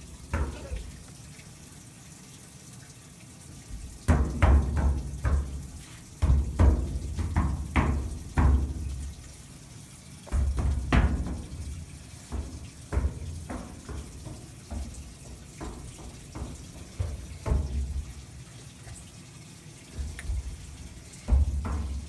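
Small hands slapping the flat sheet-metal side of a white household appliance, giving deep drum-like thumps. They come in quick runs of slaps about four, six and ten seconds in, then as single slaps a second or two apart.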